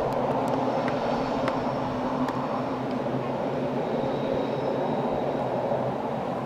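Steady distant rumble of a Rhaetian Railway Ge 4/4 III electric locomotive and its coaches rolling across a stone viaduct, with a few light clicks in the first two seconds. The sound fades slightly near the end.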